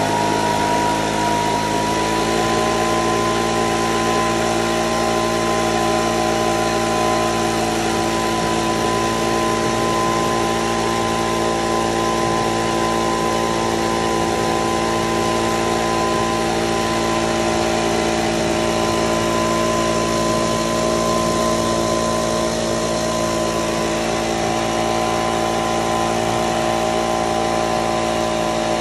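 Electric cart's blower motor running with a steady whine of several tones, rising in pitch over the first two seconds as it spins up and then holding steady, blowing air over tomato flowers to shake them for pollination.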